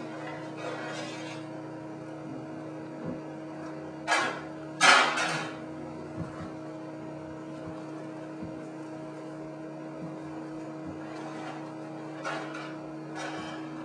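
Cooking noises at an electric stove: a few short scrapes and clatters of cookware, the loudest about five seconds in, over a steady hum.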